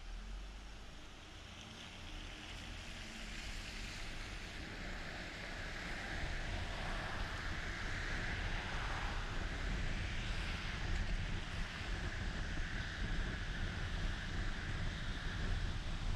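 Car road noise heard from inside the car: it pulls away from a stop, and the tyre hiss on the wet road and the engine-and-road rumble grow steadily louder as it speeds up, then hold steady.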